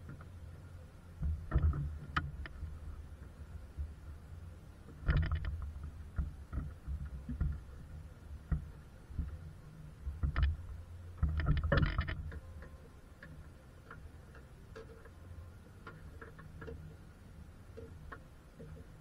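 Hands handling and knocking parts at the cowl below the windscreen of a car's engine bay: scattered clicks and knocks, loudest in short clusters about five seconds in and again around eleven to twelve seconds in, over a low steady rumble.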